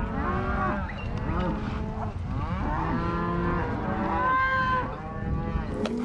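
A herd of cows and calves mooing and bawling, many calls overlapping, with one higher, steadier call standing out just past four seconds in.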